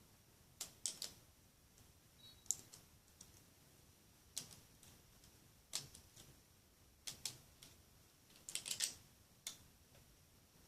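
Irregular small sharp clicks and taps of a plastic bracelet loom and hook being handled as the rubber-band bracelet is taken off the pegs, with a quick cluster of clicks near the end.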